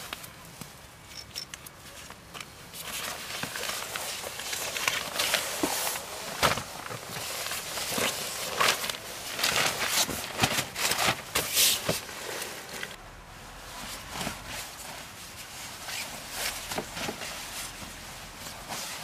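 Rustling and crinkling as a quilted fabric mat and foil-faced insulation sheets are handled, folded and smoothed flat by hand. The sound is a run of uneven scratchy strokes, busiest and loudest in the middle.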